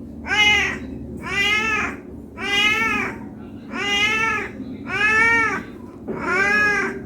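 Domestic cat meowing over and over, six calls about a second apart, each rising then falling in pitch. Typical of a hungry cat begging for food.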